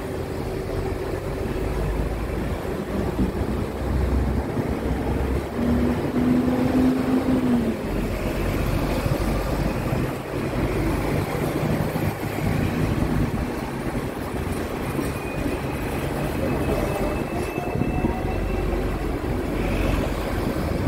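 Steady rumble of a Hong Kong double-decker tram heard from on board, mixed with the traffic of the street around it.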